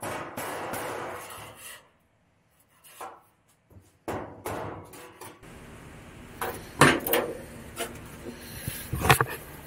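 The end of a music track, a cut to a moment of silence, then scattered sharp knocks and taps from hand work on sheet metal for a truck's new floor pan. The loudest knocks come a little past halfway and again near the end.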